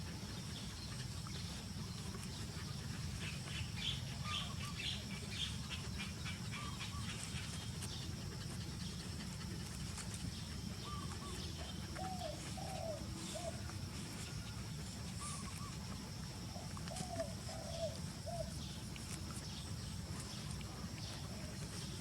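Faint animal calls: short chirps, and two brief clusters of low warbling calls, over a steady low hum.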